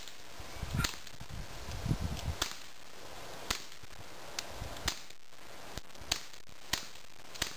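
Walther P22 .22LR pistol firing CCI standard velocity through a wetted Thompson Machine Isis 9mm suppressor: about nine sharp, quiet cracks, spaced about half a second to a second apart. Most of each shot's sound is the bullet striking the dirt berm about 15 yards off, the suppressor being extremely quiet when wet.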